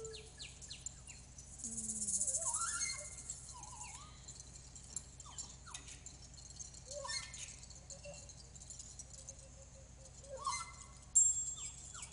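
Sparse music from a handmade-instrument ensemble: short, sliding, bird-like chirps scattered throughout, over light rattling, with louder shaker rattles about two seconds in and again near the end.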